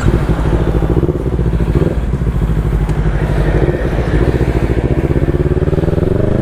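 Big-bike motorcycle engine running at low revs as it rides off, just back from a full service, with new spark plugs, a high-flow air filter, fresh oil and an adjusted chain. The revs begin to climb near the end.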